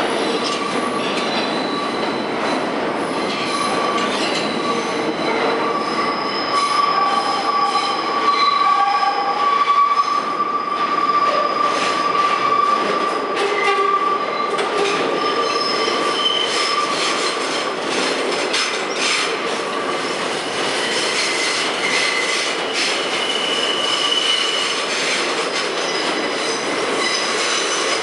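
New York City subway trains in the station: an R160B pulling out as an R46 pulls in on the far track, steel wheels squealing and clattering over the rails. A steady high whine runs through the first half, and higher squeals come in later.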